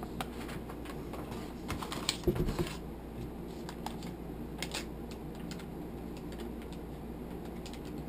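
Small clicks and taps of packaging and small items being handled, with a louder cluster of knocks and rattles about two seconds in, over a steady low hum.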